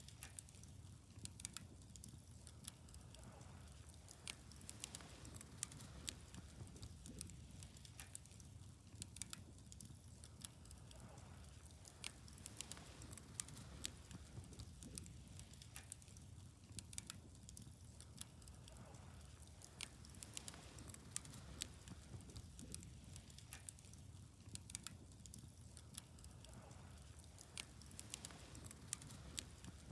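Faint wood fire crackling steadily, with frequent sharp pops and snaps over a low, even rumble.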